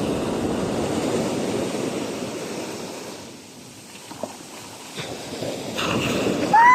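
Ocean waves washing on the shore: a loud rush of surf that falls away about halfway through, then builds again. Right at the end a loud high-pitched call or whistle starts.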